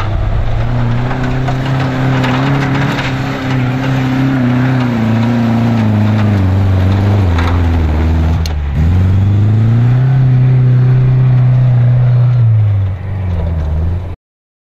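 Off-road rally 4x4's engine revving under load as it climbs a dirt slope, its pitch sagging and rising with the throttle. About two-thirds of the way through the revs drop sharply, then pick back up and hold high before easing off, and the sound cuts off abruptly just before the end.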